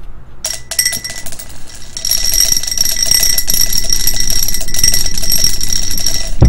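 A die rattled fast inside a clear drinking glass, clicking against the walls and setting the glass ringing. A couple of clinks come first, then a steady rattle from about two seconds in that ends in a thud.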